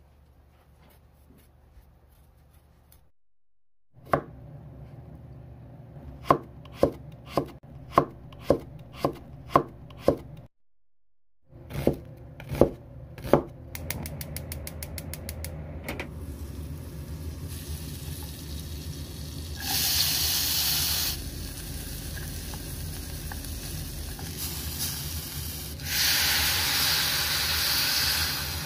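Kitchen knife chopping taro on a wooden cutting board, about a dozen strokes at roughly two a second. Then a gas stove's igniter clicks rapidly and the burner catches, followed by the steady sound of taro slices frying in the pan, with two louder stretches of sizzling.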